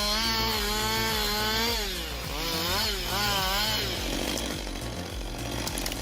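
Chainsaw running with its engine pitch wavering: it holds, sags about two seconds in and climbs twice as it works, then turns into a rougher, noisier sound for the last two seconds.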